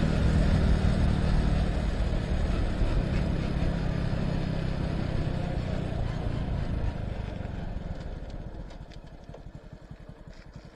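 Motorcycle engine running at road speed with wind rushing over the microphone. About two-thirds of the way in the rider eases off and the sound falls away, leaving the engine's separate low beats as the bike slows.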